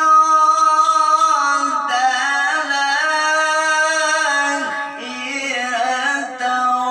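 A male qari's voice in melodic Quran recitation (tilawah), holding long ornamented notes with no clear words that step down in pitch. There is a short dip about five seconds in, after which he continues on a lower note.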